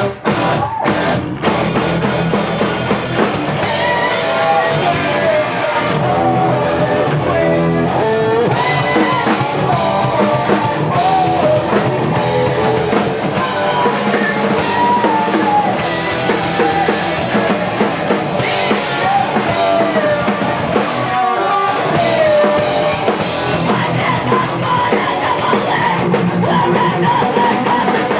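A live rock band playing a song, with drum kit and electric guitar.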